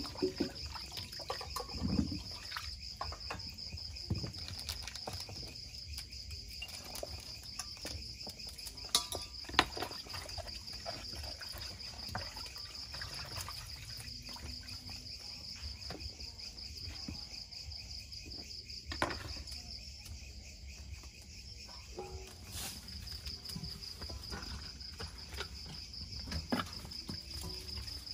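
Crickets chirring steadily with a continuous high trill. Scattered clicks, knocks and light splashes of kitchen work come through, the sharpest about 2, 9, 19 and 26 seconds in.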